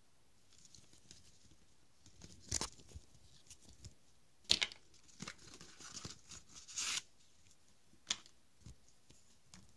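Paper leaflets and cardboard packaging being handled: several short rustles and scrapes of paper and card, the loudest about two and a half, four and a half and seven seconds in.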